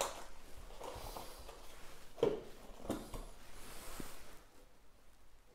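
Light handling noises as a pair of trail running shoes is shifted and set down on a table: soft rustling with a few dull knocks, the clearest about two seconds in.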